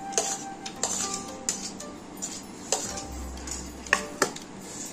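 Metal spoon clinking against serving dishes and bowls: about half a dozen sharp clinks, each with a short ring, the two loudest close together near the end, over soft background music.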